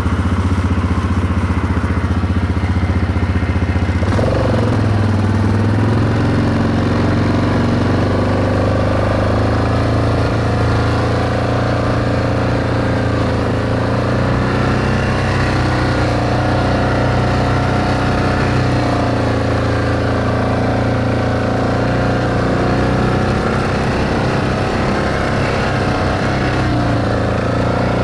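ATV engine running steadily as the machine rides a dirt trail, its pitch stepping up about four seconds in.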